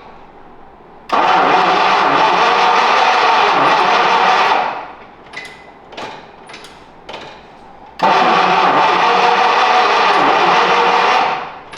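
1951 Packard's straight-eight engine cranked over on the starter twice, about three and a half seconds each, turning over without catching: the engine is not getting fuel because the tank is empty.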